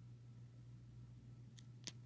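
Near silence with a steady low hum, and two faint clicks near the end.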